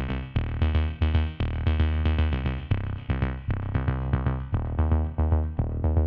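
Background music: an electronic track with a synthesizer bass line and a drum-machine beat, about four notes a second.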